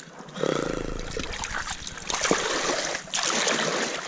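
Shallow seawater splashing and sloshing as hands rummage among kelp and rocks in a rock pool. It comes in two bouts, with a short break a little after three seconds in.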